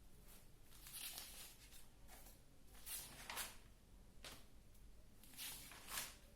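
Faint scratching strokes of writing, a handful of short ones spread about a second apart, over a low steady hum.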